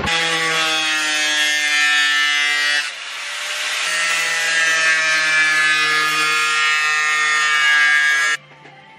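Small handheld corded power tool running with a steady motor whine. It drops and changes pitch about three seconds in, then stops suddenly near the end.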